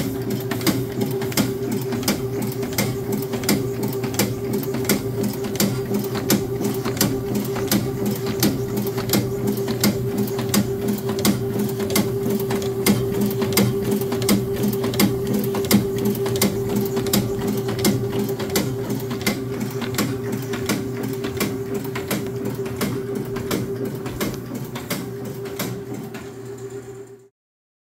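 Standard/Morgana FRN-6 friction feed rotary numbering machine running, a steady motor hum with a regular clicking about three times a second. It cuts off suddenly near the end.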